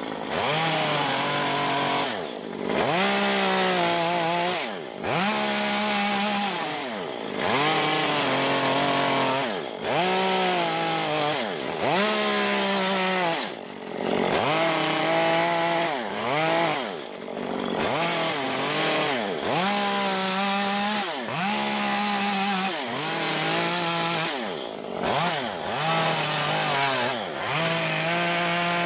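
Stihl MS 193 T two-stroke chainsaw with a carving bar, revved up and dropped back over and over, every two seconds or so, as it cuts the eyes, nose and mouth into a log.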